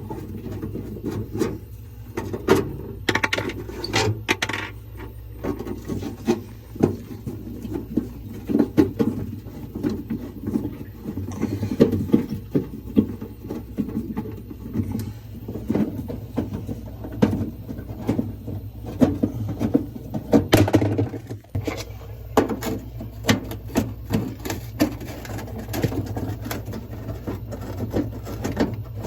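Steady low hum of a running refrigerator compressor, under repeated clicks, clinks and rattles of a hand tool and metal bolts as rusted 1/4-inch bolts are taken out of the freezer's back panel.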